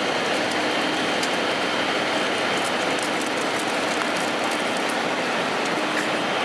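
Steady rushing cabin noise of an airliner in flight: airflow and engine noise, unchanging in level.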